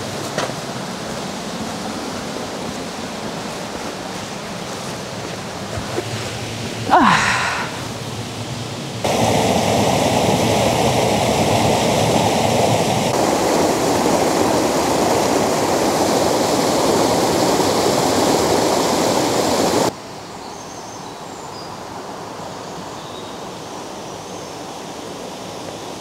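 Rushing water of a small woodland stream and waterfall, in several takes that change level abruptly. It is loudest from about nine to twenty seconds in. A brief sweeping sound cuts across about seven seconds in.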